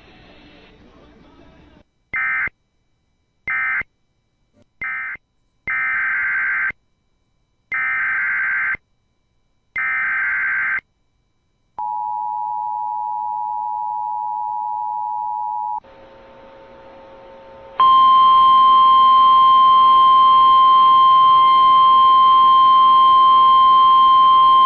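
Emergency Alert System data tones between two alerts. Three short screechy digital end-of-message bursts come first, then three longer one-second SAME header bursts, then the two-note EAS attention signal for about four seconds. After a short pause, the NOAA Weather Radio single-pitch 1050 Hz warning alarm tone starts about 18 seconds in and holds steady, announcing a tornado warning.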